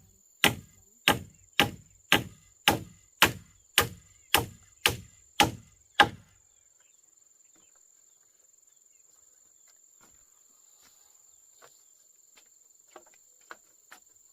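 About a dozen evenly spaced blows of a hand tool, roughly two a second, stopping about six seconds in. A steady high insect buzz, like crickets, runs underneath, with a few faint taps near the end.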